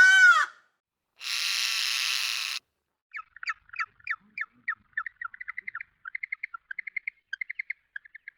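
Bird calls. A harsh caw ends just after the start, then a single longer rasping squawk, then from about three seconds in a long run of quick, high chirps and trills.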